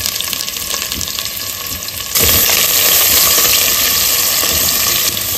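Sliced onions sizzling in hot oil in a pressure cooker, growing louder about two seconds in, while a wooden spoon stirs them.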